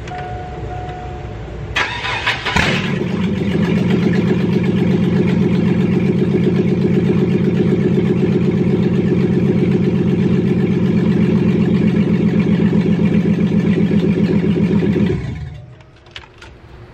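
Pickup truck engine cranked and catching about two seconds in, then idling loudly and evenly with a steady pulsing beat for about twelve seconds before being switched off near the end.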